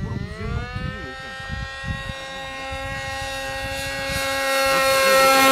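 10 cc nitro glow engine of a Depron RC plane in flight: a high, steady whine whose pitch climbs during the first second and then holds, growing louder toward the end as the plane comes closer. A low rumble sits under it in the first two seconds.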